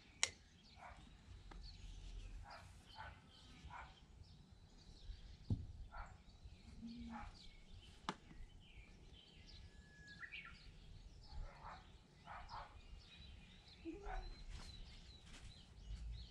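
Faint birds chirping in short, repeated calls, with a brief whistled note about two-thirds of the way through, over a low steady rumble. Two sharp clicks stand out, one just after the start and one about halfway.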